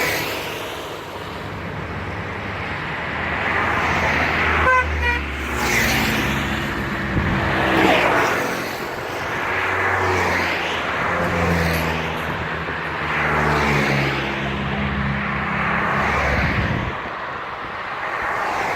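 A string of motorcycles riding past one after another, their engine notes rising and falling as each goes by. A short pulsing beep sounds about five seconds in.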